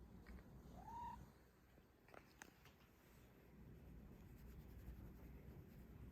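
Cat giving one short, quiet mew about a second in, rising then levelling off in pitch; a few faint clicks follow.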